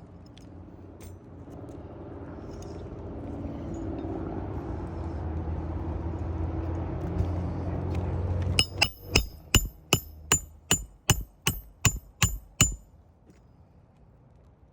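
A low rumble builds steadily for several seconds. Then come about a dozen sharp metallic strikes with a ringing tone, about three a second, which stop abruptly.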